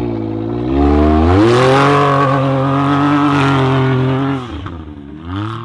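Can-Am Maverick side-by-side accelerating away hard under full throttle. The engine climbs in pitch over about a second, holds high for about three seconds, then drops off as the throttle is lifted, with a brief rise again near the end.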